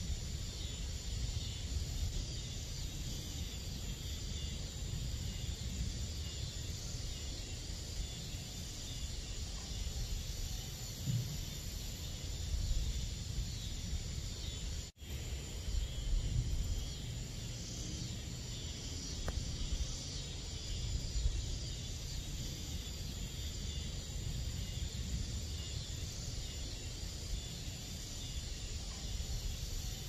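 A steady chorus of crickets and other night insects, with a low rumble underneath. The whole sound drops out for an instant about halfway through.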